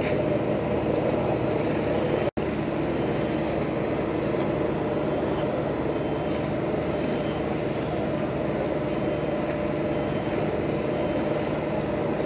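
Fire engine running steadily with a constant engine hum. The sound cuts out for an instant about two seconds in.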